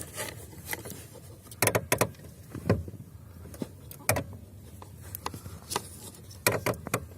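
Lada Granta clutch pedal mechanism being worked, giving a handful of sharp clicks and creaks at irregular intervals: the squeak-and-click fault of the pedal, which the owner sets out to cure by oiling the moving part at its spring.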